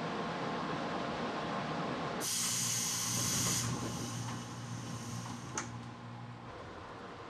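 Local commuter train's pneumatic doors closing: a loud hiss of compressed air lasting about a second and a half, then the doors shut with a single sharp clunk a couple of seconds later. A steady hum from the stopped train runs underneath.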